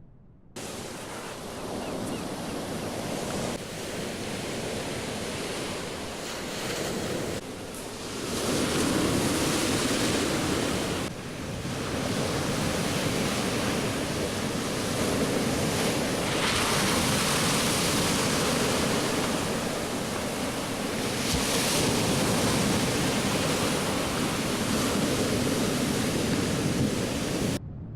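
A steady rushing noise, like surf or wind, that swells and eases every few seconds; it starts abruptly and cuts off suddenly near the end.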